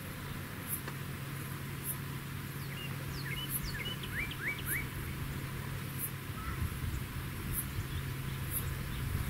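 Open grassland ambience: a steady low hum and faint high ticks about once a second, with a quick run of short, high chirps a few seconds in.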